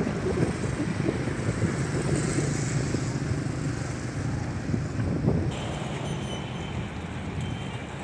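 Wind blowing across the microphone: a low, gusty rumble that eases slightly about five and a half seconds in.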